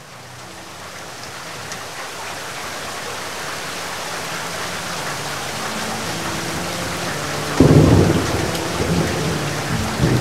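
Heavy rain hissing steadily and growing louder, with a sudden loud thunderclap rumbling about seven and a half seconds in and a second, smaller rumble near the end.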